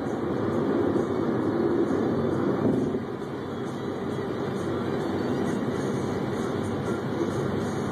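Steady road and engine noise of a car cruising at highway speed, heard from inside the cabin. It turns a little quieter about three seconds in.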